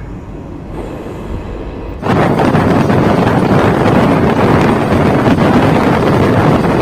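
Passenger train running at speed, heard from an open window or door with wind buffeting the phone microphone. A lower rumble for about the first two seconds, then the wind and running noise become suddenly much louder and stay steady.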